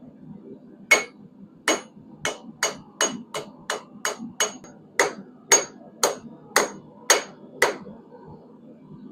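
Blacksmith's hammer striking a hot quarter-inch square steel bar on the anvil, about fifteen ringing blows in an uneven rhythm that stop a little before the end.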